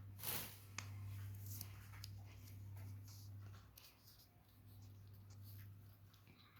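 Faint scratching and light ticks from pet parrots moving about, over a steady low hum, with a short louder rustle near the start.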